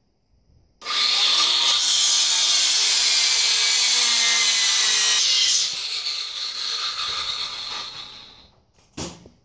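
Angle grinder with a cut-off wheel cutting through a metal bracket arm held in a vise. It starts suddenly about a second in and cuts steadily for about five seconds, then eases off and winds down with falling pitch over the next three seconds. A single short knock comes near the end.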